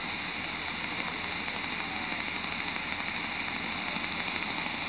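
Shortwave receiver in SSB mode on the 20-metre amateur band at 14177 kHz giving out steady hiss and static: the band noise of the channel between transmissions.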